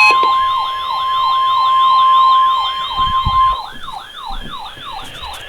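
Electronic siren wailing in quick falling sweeps, about three a second, over a steady high alert tone. The tone cuts off about three and a half seconds in, and the siren carries on more quietly.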